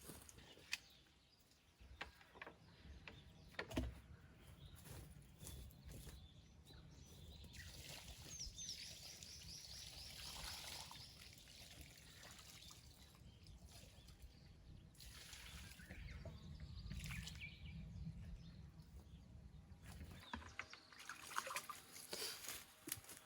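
Faint hiss and trickle of fungicide spray misted onto a persimmon tree, with a few sharp knocks, the loudest about four seconds in.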